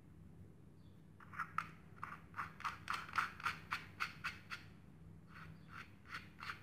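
Quick run of plastic clicks and rasps, about three or four a second, as parts of a Powerfix 90-degree angle drill attachment are twisted by hand. The clicks pause briefly past the middle, then start again.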